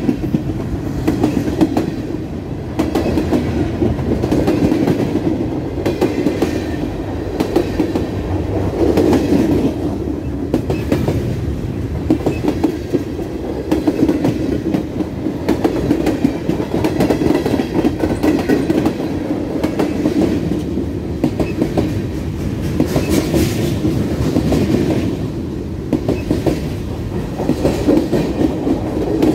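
Norfolk Southern freight train rolling past, its cars' wheels running steadily on the rails.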